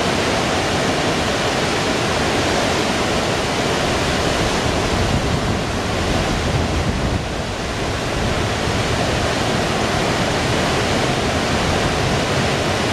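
Waterfall of the Reuss river pouring down through the gorge: a loud, steady rush of falling water.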